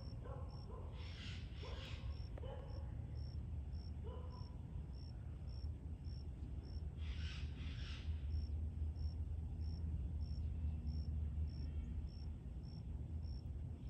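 An insect chirping steadily in a high, even rhythm of about two chirps a second, over a constant low rumble of background noise. Two short hissy bursts come about a second in and again around seven seconds, and faint voices can be heard in the first few seconds.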